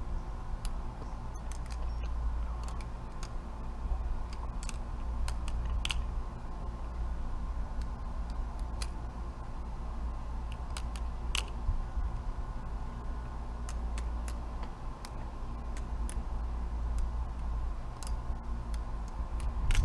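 Metal-handled balisong being flipped, its handles and blade clicking and clacking against each other in irregular single clicks and quick runs, over a steady low rumble.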